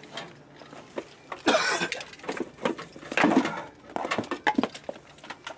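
Handling noise as cables and equipment are moved: two short noisy bursts a second and a half apart, then a few light clicks.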